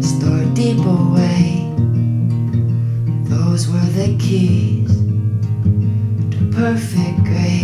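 Acoustic guitar in an open C tuning, strummed and picked, with low bass notes ringing under the chords. A man sings over it in places.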